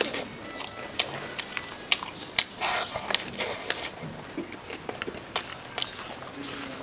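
Close-up eating sounds of someone chewing a mouthful of food eaten by hand, with many short, sharp mouth clicks and smacks coming irregularly.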